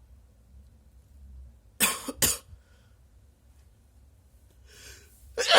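A person's quick double sneeze about two seconds in, two short sharp bursts in a row. Near the end comes a sharp breath in, then the start of a louder voiced sneeze that falls in pitch.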